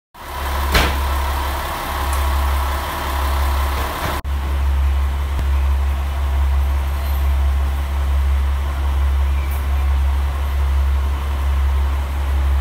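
Diesel railcar engine idling, a steady low drone under a hiss of background noise. There is a sharp click just under a second in and a brief break about four seconds in.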